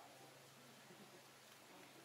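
Near silence: faint background hiss with a low steady hum.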